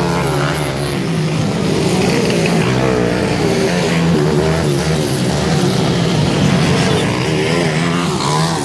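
Motocross dirt bike engines running hard on a dirt track, their pitch rising and falling steadily as the riders rev up and back off.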